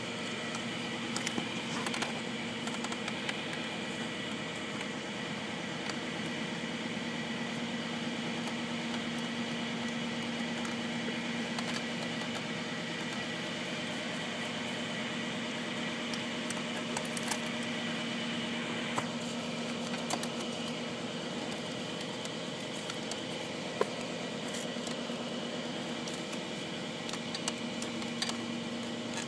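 GY6 139QMB 50cc four-stroke single-cylinder scooter engine idling steadily, with a few light clicks.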